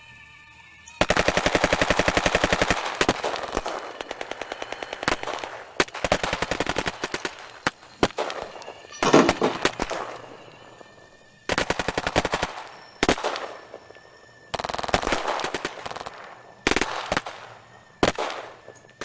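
Battle sound effect: repeated bursts of rapid machine-gun fire, some several seconds long, separated by short pauses, with a louder blast about nine seconds in.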